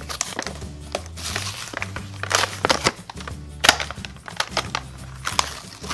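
Plastic blister packaging crinkling and its paper card backing tearing as a toy car is pulled out, a string of short rips and crackles with a few louder snaps, over background music.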